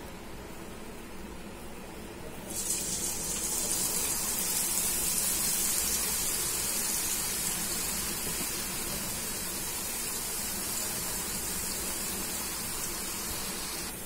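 Gram-flour batter dropping through a perforated ladle into hot oil: about two and a half seconds in, a loud sizzle of deep-frying boondi starts suddenly and carries on, easing off slowly.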